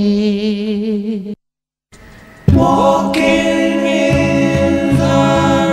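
Song ending: a final sung note held with vibrato over a backing track stops about a second in, and after a short silence the backing music comes back with a sustained chord.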